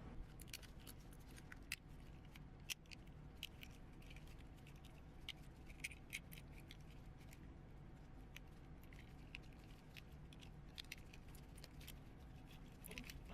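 Faint, scattered clicks and light rattles of a small die-cast transforming toy's parts being moved and snapped by hand.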